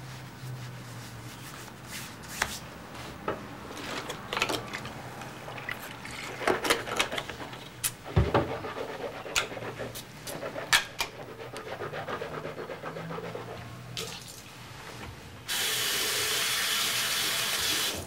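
Clothing rustles and small clicks and knocks of things being handled, then about two and a half seconds before the end a bathroom sink tap is turned on, running water in a steady hiss that stops abruptly.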